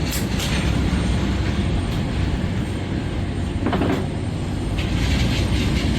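Jet airliner engines running with a steady low rumble.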